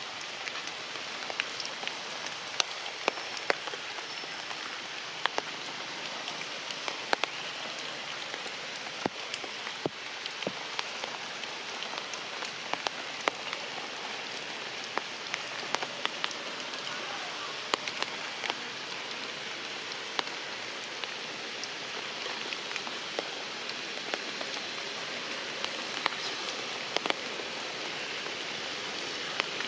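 Heavy rain falling steadily, with frequent sharp, louder drops striking close by.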